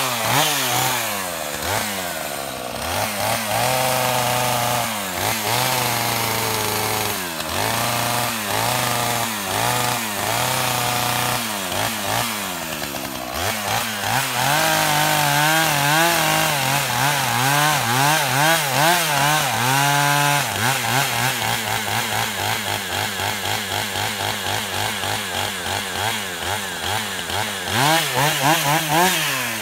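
Gas chainsaw revved repeatedly in short bursts, then held at high revs for several seconds with the pitch wavering as it cuts through a tree being felled. It drops back to a low, pulsing idle for most of the second half, with one short rev near the end.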